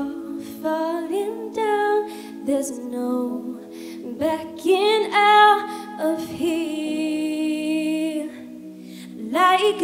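A woman singing live into a handheld microphone over steady instrumental accompaniment, with long held and sliding notes.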